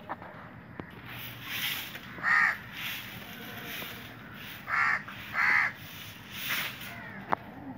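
Crows cawing: three loud, short, harsh caws, one about two and a half seconds in and two close together about five seconds in, with fainter caws between them.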